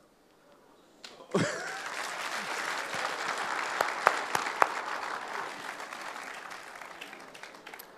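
Audience applauding: after a brief hush the clapping starts about a second in and slowly dies away, with a few loud single claps near the middle.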